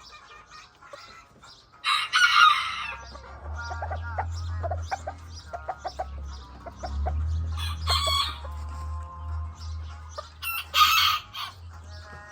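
Azteca roosters crowing and clucking, with the loudest outbursts about 2, 8 and 11 seconds in and shorter calls between them, over a steady low hum.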